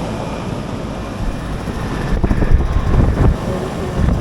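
Outdoor air-conditioner condensing units running, a steady fan and compressor hum, under wind buffeting the microphone, which swells loudest about halfway through.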